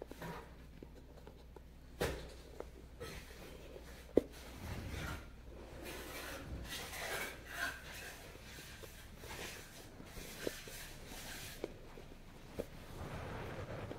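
Hand embroidery on denim: soft rustling and rubbing of fabric as a needle and thread are drawn through, with scattered small sharp clicks, the loudest about four seconds in.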